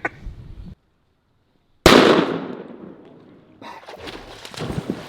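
A single shotgun blast about two seconds in, sudden and loud, ringing out and fading over about a second, followed by softer clicks and knocks.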